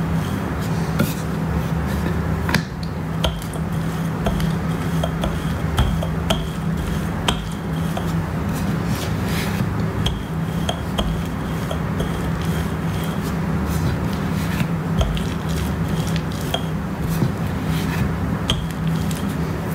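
Wooden rolling pin rolling out a stuffed paratha dough on a wooden board, with scattered light clicks and knocks as the pin moves, over a steady low hum.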